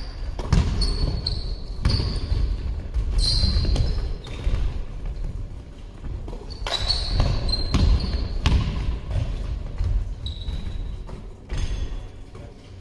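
Basketball game on an indoor court: the ball bouncing and thudding on the floor, with sneakers squeaking on the court several times, echoing in the large hall.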